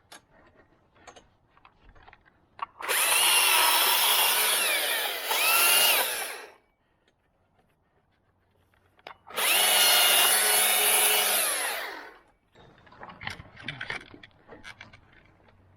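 Electric chainsaw cutting a small branch in two runs of about three seconds each, a few seconds apart, its motor whine shifting in pitch as the chain bites. Light knocks and rustling follow near the end.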